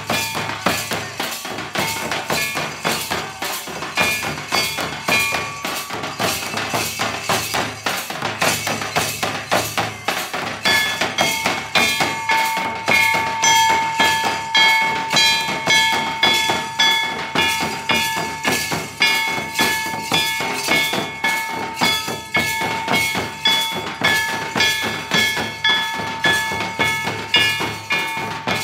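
Santal festival drumming: several large tamak' kettle drums beaten with sticks and a tumdak' barrel drum, keeping a fast, steady beat. A steady high note is held over the drums from about twelve seconds in.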